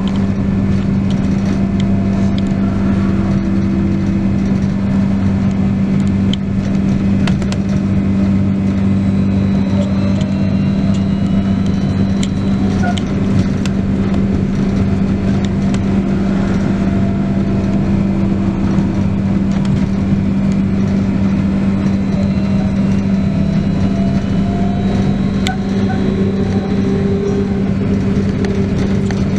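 Inside a moving trolleybus: the electric traction motor's whine rises and falls in pitch several times as the bus speeds up and slows, over a steady low hum. Short rattles and clicks from the body come through now and then.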